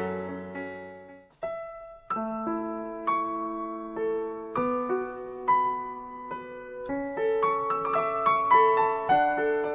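Background piano music: a slow melody of single notes and chords. It breaks off briefly about a second and a half in, then starts again.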